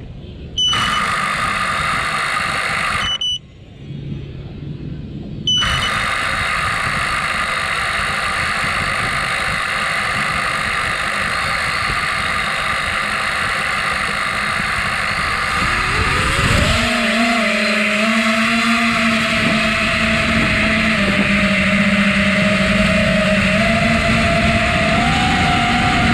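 Small drone's motors and propellers running: a loud steady whirr that cuts out about three seconds in and starts again a couple of seconds later, then a rising, wavering whine from about sixteen seconds in as the drone throttles up and lifts off.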